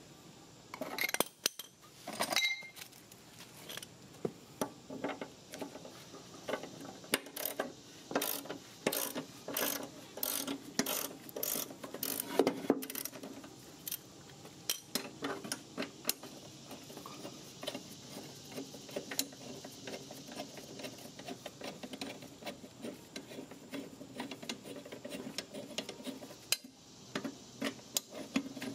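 Ratchet wrench clicking and small metal parts clinking as a lawn mower blade's mounting bolt is loosened and removed, with a run of sharp clicks in the first half and sparser, fainter ticks later.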